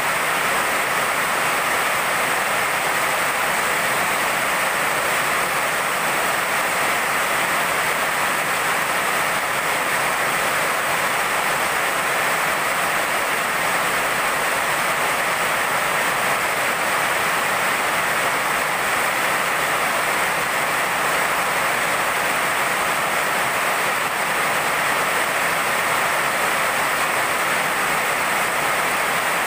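Heavy rain pouring onto wet paved ground: a steady, unbroken rush of splashing drops.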